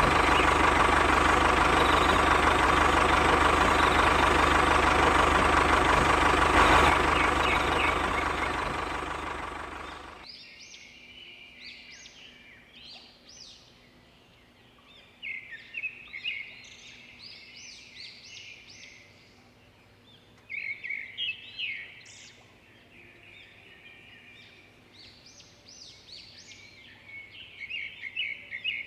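A loud, steady sound fades out over the first ten seconds. Then small birds chirp in short clusters against a quiet background.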